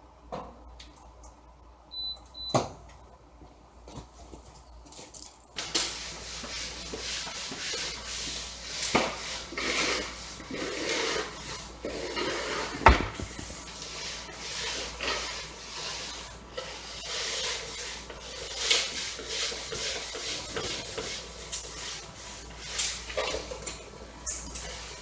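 Handling noises: a few faint clicks, then from about six seconds in a steady hiss with repeated clatters and knocks, one sharp knock near the middle the loudest.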